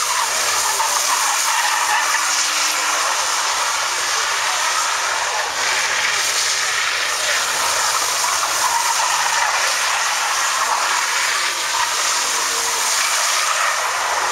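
BMW 3 Series engine held at high revs while its rear tyres spin and squeal on the wet, gravelly asphalt as the car drifts in circles. The tyre noise wavers in pitch as the car slides round.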